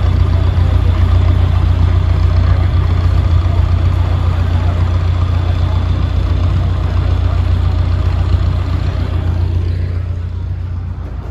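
Narrowboat diesel engine running steadily at low speed, a deep constant hum, easing off slightly near the end.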